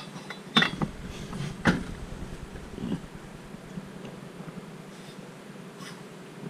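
A few light knocks from the Stihl MS660 chainsaw cylinder being handled on a billet crankcase, about half a second and a second and a half in, then a low steady hum.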